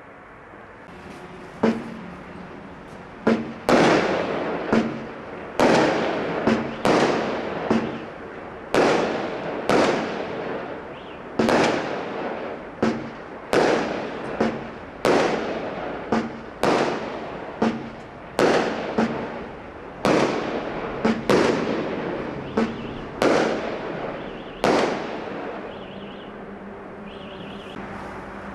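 Consumer firework barrage cakes firing shot after shot: a loud bang about every second, each trailing off quickly before the next.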